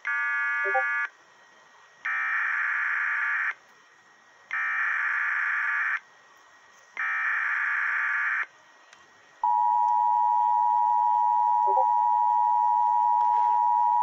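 Emergency Alert System tones for a child abduction emergency alert: after a short electronic burst, three harsh screeching SAME data header bursts about a second and a half each, with short gaps between them. About two-thirds of the way in, the steady two-tone attention signal begins and holds.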